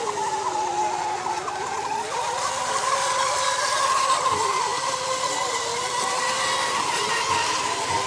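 Several radio-controlled Mini Mono racing boats running at speed, their motors making a steady whine that wavers up and down in pitch as the boats race and turn.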